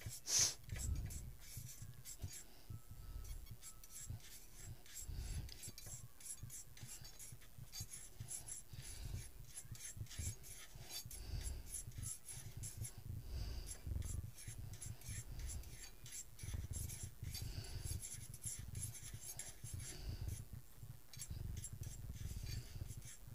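Metal spoon scraping and stirring cumin and nigella seeds as they roast in a small metal tadka pan. A faint, irregular run of scrapes and light clicks over a low rumble.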